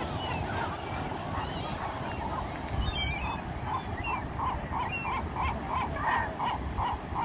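Gulls calling: scattered cries, then a rapid run of honk-like notes, about three a second, through the second half, over a steady wash of surf and wind.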